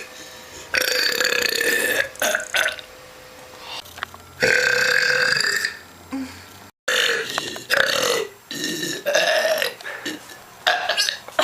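A woman belching repeatedly: two long, loud burps of about a second and a half each, then a string of shorter burps.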